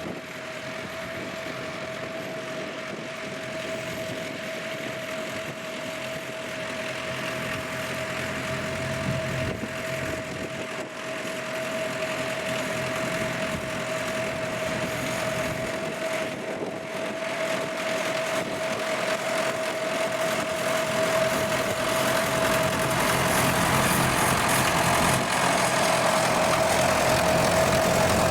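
Tractor engine running steadily under a constant high whine, growing steadily louder as it draws closer.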